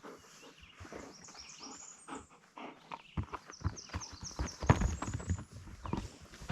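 Irregular footsteps and a dog's paws scuffing and crunching on woodland ground, with a run of quick high chirps in the middle.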